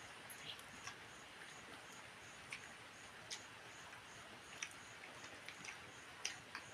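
Faint mouth clicks and smacks of a person eating, irregular and scattered, over a quiet hiss. A faint high ticking runs about twice a second.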